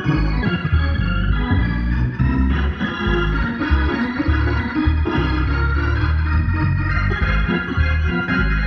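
Two-manual organ playing sustained full chords over a heavy bass line that changes every second or so.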